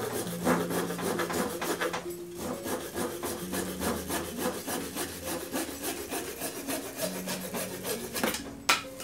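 Hand pruning saw cutting through a thick branch of a jabuticaba bonsai: a fast, rhythmic run of rasping back-and-forth strokes in the wood, with one sharp click near the end.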